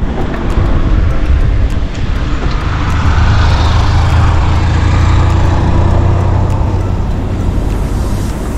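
Road traffic: a motor vehicle passes close by, its noise swelling after about a second, strongest around the middle, then easing off near the end.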